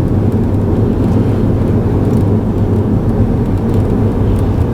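Steady low rumble of a car driving: road and engine noise heard from inside the car.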